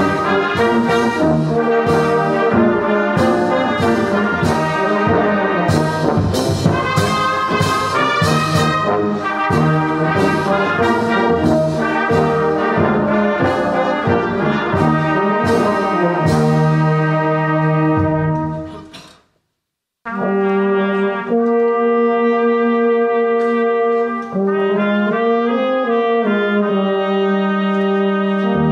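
A brass band of trumpets, trombones and tubas playing a hymn: a busy passage with many crisp note attacks, then the sound cuts out completely for about a second just past two-thirds of the way in, followed by long sustained chords.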